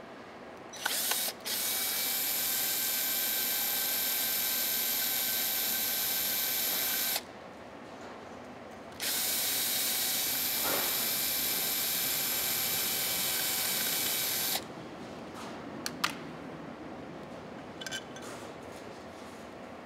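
Power screwdriver running steadily in two long runs of about six seconds each, backing out the screws of a gasketed cover, followed by a couple of light clicks near the end.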